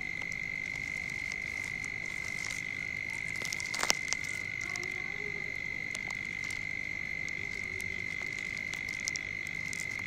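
A continuous, high-pitched trill of a calling animal at one unchanging pitch, with a few faint clicks about four seconds in.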